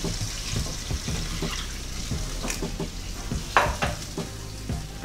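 A spoon stirring mutton pieces through a thin yogurt-and-water gravy in a pan, with irregular soft scrapes and knocks against the pan over a light sizzle. One louder scrape comes about three and a half seconds in.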